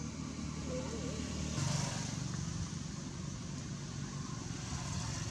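Low, steady rumble of a motor vehicle engine running in the background. About a second and a half in, a short noisy swell briefly rises above it.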